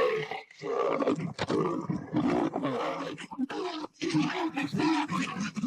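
Leopards growling and snarling at each other in a territorial fight, continuous and harsh with a few brief breaks.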